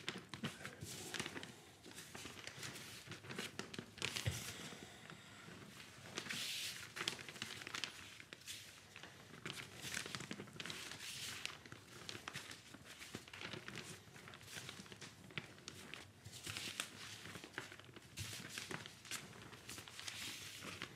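Plastic sheet crinkling and rustling in irregular bursts as it is lifted and folded over powdered Bengal-fire composition, to work the glue-like binder into the powder without it sticking to the gloves.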